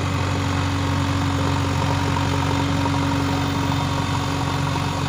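JCB 3DX backhoe loader's diesel engine running steadily with an even hum while its hydraulics push the backhoe and loader arms down, lifting the machine's rear wheels off the ground.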